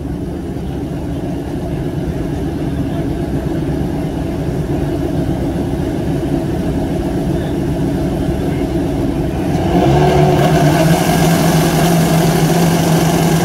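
Drag-racing motorcycle engines running at low revs. About ten seconds in, an engine is brought up and held at a steady, higher pitch.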